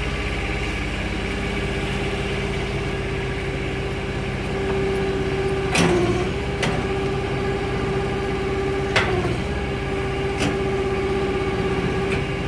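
Vehicle engine idling steadily, with a steady whine above it and a few sharp clicks, the clearest about six and nine seconds in.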